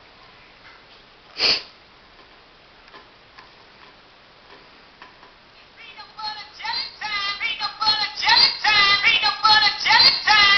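A song ringtone starts playing from a mobile phone's speaker about six seconds in, a melody with singing that grows louder. Before it, a single short rush of noise comes about a second and a half in.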